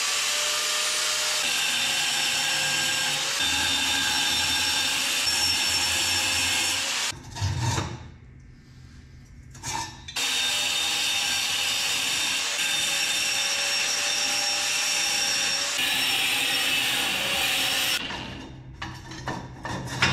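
A power tool cutting through the steel of a ladder rack, in two long runs of about seven and eight seconds with a short break and a knock between them; its motor whine wavers slightly under load.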